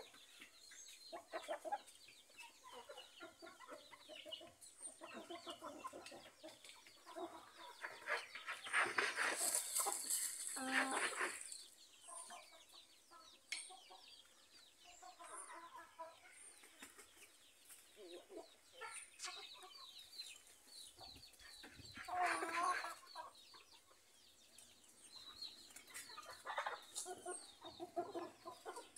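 A flock of chickens, hens and roosters, clucking on and off, with louder, longer calls about eight to eleven seconds in and again around twenty-two seconds in.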